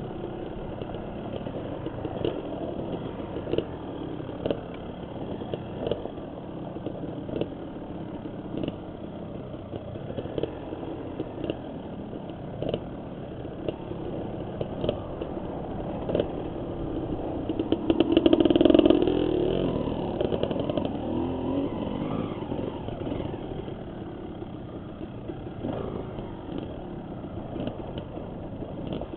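Dirt bike engine running at changing throttle as it rides a rough trail, with frequent short knocks and clatter. It revs up loudest about two-thirds of the way through, then settles back.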